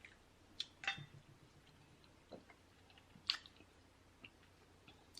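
Quiet close-miked eating: chewing and mouth sounds with a few sharp clicks, the loudest about three seconds in and another at the very end.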